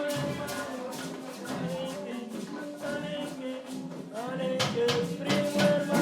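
Music with a quick, steady shaken-percussion rhythm under sustained melodic lines.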